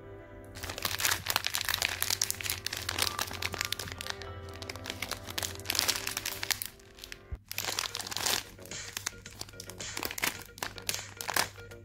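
Plastic jelly bean packet crinkling and crackling as it is handled and pulled at to tear it open, with background music throughout. The crinkling breaks off briefly about seven seconds in, then resumes.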